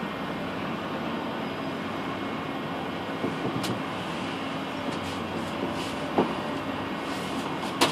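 Steady noise inside a moving cable car gondola, with a faint low hum, a few soft knocks and a sharper click near the end.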